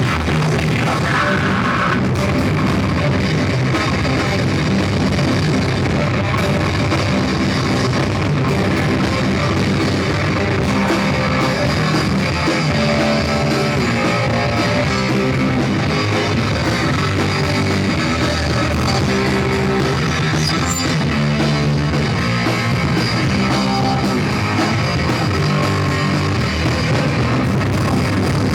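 Live punk/metal band playing loud and steady: distorted electric guitars, bass and a drum kit, recorded with poor, distorted sound.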